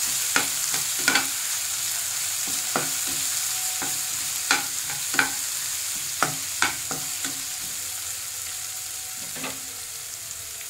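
Chopped onions and garlic sizzling in oil in a nonstick kadai while a steel spoon stirs them, scraping and clicking against the pan at irregular intervals. The sizzle slowly gets quieter and the spoon clicks stop near the end.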